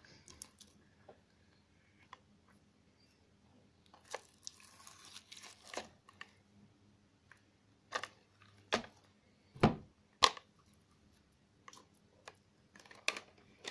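Sticky beaded slime being squeezed and pulled apart by hand, giving scattered wet pops, crackles and tearing sounds at irregular intervals, with a few louder snaps around the middle.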